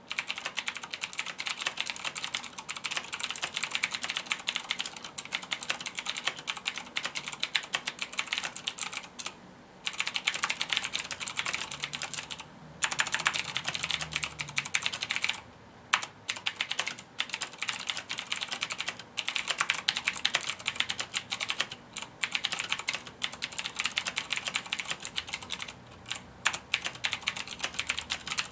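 Fast continuous typing on a Razer BlackWidow Tournament Edition mechanical keyboard with Cherry MX Blue switches: dense clicky keystrokes, broken by a few short pauses.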